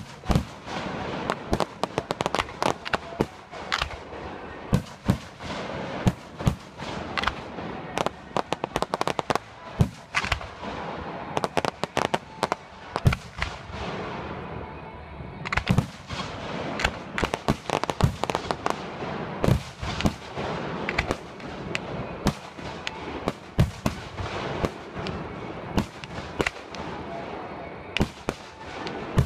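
Fireworks display: aerial shells bursting in quick succession with sharp reports several times a second over continuous crackling, thinning briefly about halfway through before a new volley.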